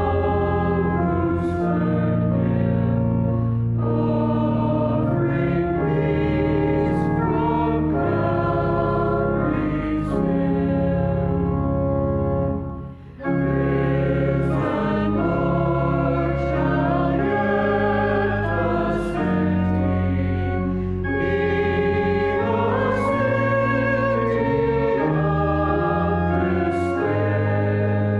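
A choir singing with instrumental accompaniment in slow, held chords over a steady bass line, with a brief break about thirteen seconds in.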